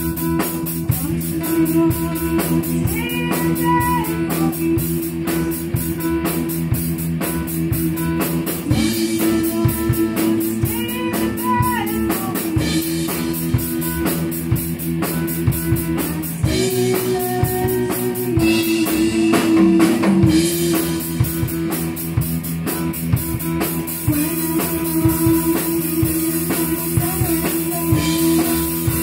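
A rock band playing a blues song live: drum kit keeping a steady beat under electric guitars and keyboards.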